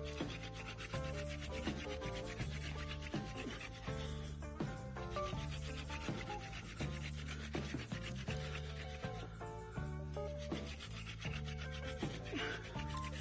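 Hand drill friction fire: a wooden spindle spun back and forth between the palms grinds into a wooden hearth board with a steady rasping rub, the hearth already smoking as it works toward an ember. Background music plays underneath.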